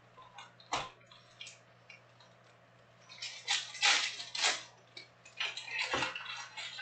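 Foil trading-card packs and cards being handled on a table: rustling and crinkling in bursts, busiest between about three and five seconds in. Sharp taps come a little under a second in and again about six seconds in.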